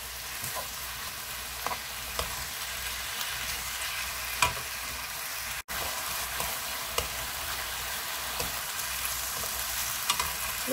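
Fish cake slices sizzling in a bubbling soy and chili sauce in a frying pan as they are stir-fried, with wooden spatulas clicking and scraping against the pan now and then.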